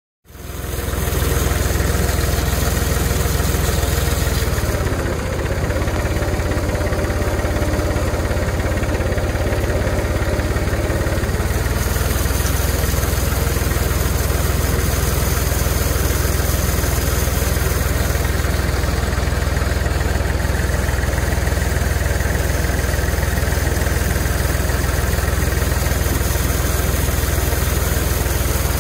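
An engine idling steadily, a deep low hum. Its tone shifts a little between about five and twelve seconds in.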